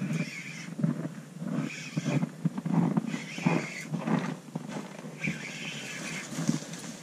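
Ice fishing reel being cranked in short repeated bursts, about one a second, with a lake trout hooked on the line.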